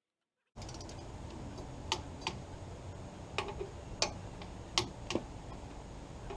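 Torque wrench clicking as hub bolts are tightened to 25 foot-pounds: several sharp, separate clicks, some in close pairs, over a steady low background hum. The sound cuts in suddenly about half a second in.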